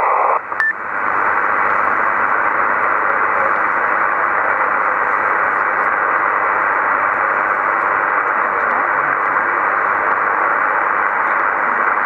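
Steady hiss from an SSB radio receiver on 27 MHz lower sideband with no signal coming in, after a brief dip and a short blip just under a second in as the incoming transmission drops out.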